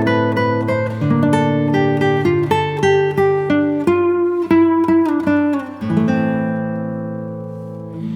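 Background music: acoustic guitar picking a tune, ending on a chord that rings and slowly fades near the end.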